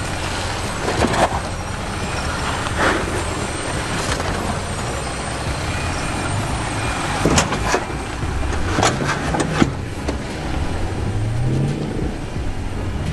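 An off-road 4x4's engine running low and steady and revving up twice in the second half as it crawls down rock ledges, with several sharp knocks from tyres and underbody against the rock.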